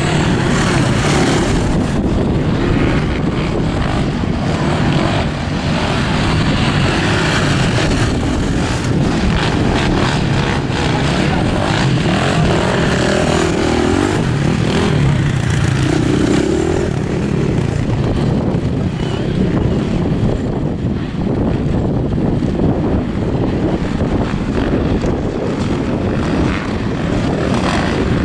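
Several dirt bike engines running and revving together without a break, a loud, dense engine noise with a few swells as riders open the throttle.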